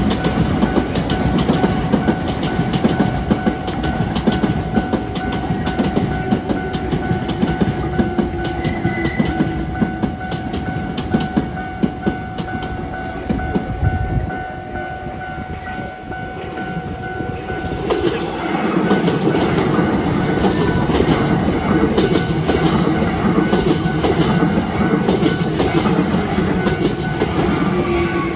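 Hankyu electric trains passing over a level crossing, wheels clattering over the rail joints. The crossing's warning bell rings steadily for the first two-thirds. The train noise eases off about halfway through, then a second train comes through louder from about two-thirds in.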